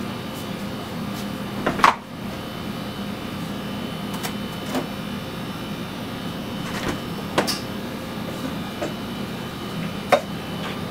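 Upright ultra-low (−80 °C) lab freezer's door being unlatched, opened and shut. A few sharp clunks of the latch handle and door, the loudest just before two seconds in, sound over a steady machine hum.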